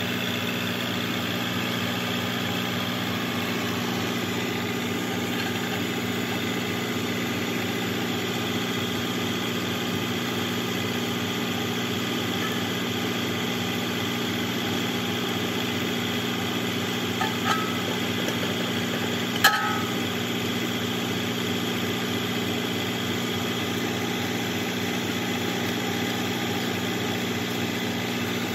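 Tractor engine running steadily at idle, a low even hum, while it drives a drip-hose winder reel. Two short, sharp metallic clinks come about two-thirds of the way in.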